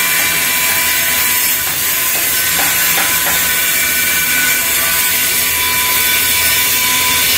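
Steady, loud machinery noise with a constant hiss, a low hum and a few steady tones, over which a hand tool scrapes the surface of a plastic waste pipe to roughen it before epoxy.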